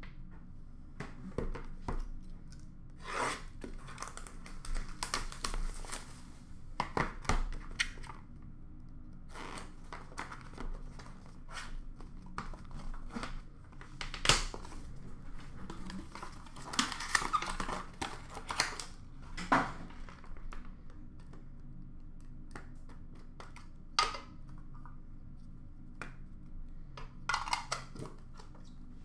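Cardboard trading-card box and its paper packaging being handled and opened: intermittent rustling, scraping and sharp little clicks of card stock, in bunches with short pauses between.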